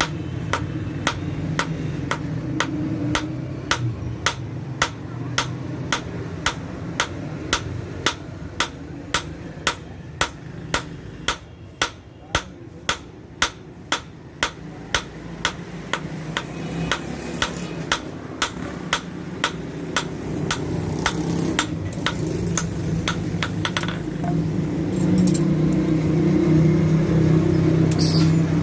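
Blacksmith's hammer striking steel on an anvil in a steady rhythm of about two blows a second, forging an old bearing into a half moon knife; the blows stop about three-quarters of the way through. A steady low hum runs underneath and grows louder near the end.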